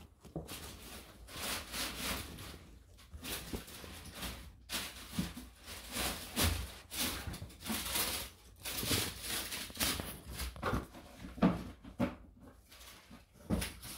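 Handling noise from a Balenciaga Triple S sneaker turned in the hands close to the microphone: irregular rubbing and rustling scrapes on the mesh and leather, with small bumps and a louder knock about eleven and a half seconds in.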